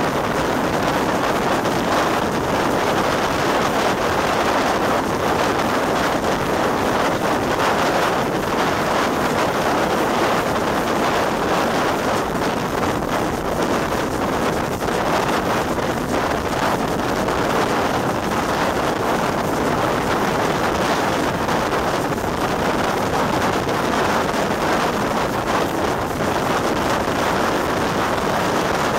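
Steady rush of a moving steam train's running noise mixed with wind buffeting a microphone held out in the slipstream.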